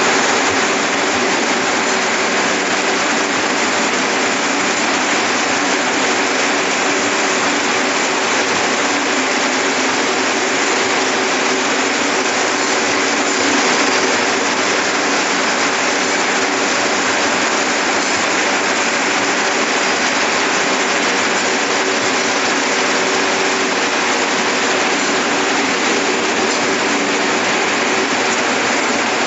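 Circular looms weaving yarn into tubular fabric, many running together: a loud, dense, unbroken mechanical clatter and hiss with a steady hum underneath.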